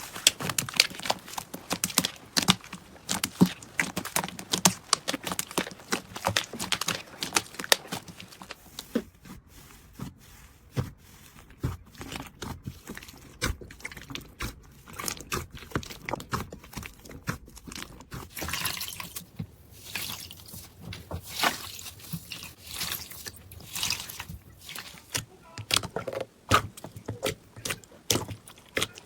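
Slime being squeezed and poked by hand, making a run of wet clicks, pops and crackles. The pops come thick at first, thin out for several seconds in the middle, then pick up again near the end.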